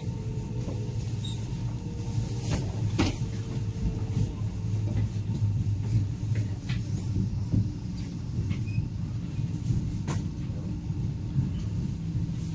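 Inside the door vestibule of a CR300AF Fuxing high-speed train: the steady rumble and hum of the train running, with scattered sharp clicks and rattles.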